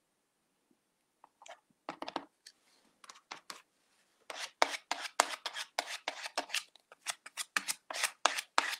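A few light rustles as a mesh stencil is handled and laid down, then from about four seconds in, quick repeated strokes of an applicator rubbing gel ink through the mesh stencil, about three strokes a second.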